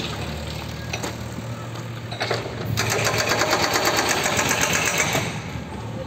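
A fast, even mechanical rattle from a machine that starts a little under three seconds in and stops about two seconds later, over a steady low hum with a few scattered knocks.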